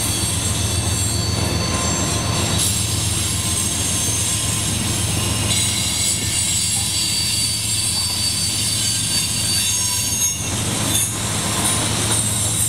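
Loaded coal hopper cars rolling past, steel wheels on the rails giving a steady low rumble under a thin, high-pitched wheel squeal.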